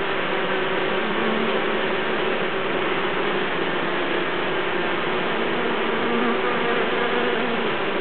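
Many honeybees fanning their wings at the hive: a steady, dense buzzing with a few wavering hum pitches. The fanning cools and ventilates the hive and spreads Nasonov pheromone.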